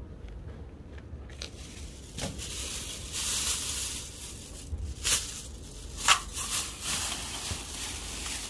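Plastic rustling and crinkling close to the microphone, with a few sharper crackles about two, five and six seconds in.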